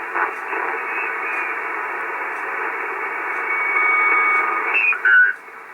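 Icom 730 shortwave transceiver receiving 75 metres in lower sideband: steady narrow-band static and hiss with an interfering noise over the signal, and faint thin whistling tones midway. The level drops suddenly about five seconds in.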